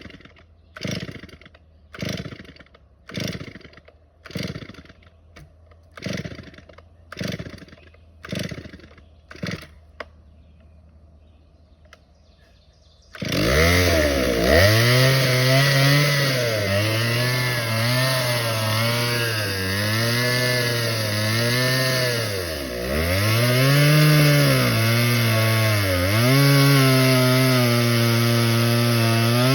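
Two-stroke chainsaw pull-started: about nine quick yanks on the starter cord, a second apart, then a pause before the engine catches and runs, revving up and down. The owner blames a dirty carburetor starving the engine of fuel.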